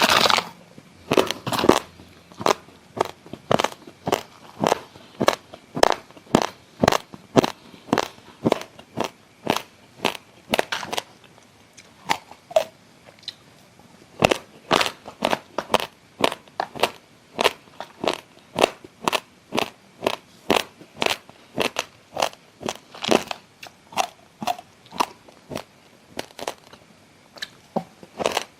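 Close-miked chewing of raw, uncooked basmati rice: dry grains crunching between the teeth, about two to three sharp crunches a second, with a brief quieter lull about halfway through.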